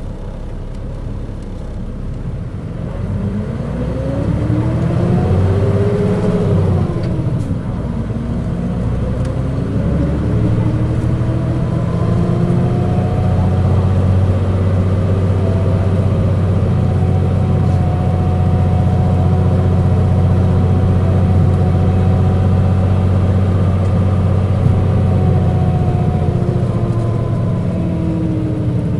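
Mitsubishi Fuso KC-MP617K city bus heard from on board, running with a loud whining tone over its engine hum. The whine rises, then drops about seven seconds in as the bus shifts gear. It climbs again and holds steady, then falls off near the end. The whine is not this bus's normal sound, and the uploader suspects some fault or trouble behind it.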